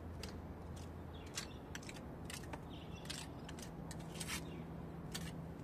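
Small hand trowel scraping and spreading wet plaster mortar over a concrete wall patch: a series of short, irregular scrapes, a couple of them longer, about three and four seconds in.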